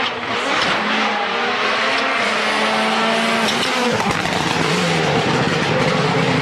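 Rally car engine running hard at high revs, with a haze of gravel and tyre noise on a loose surface. The sound changes abruptly about four seconds in.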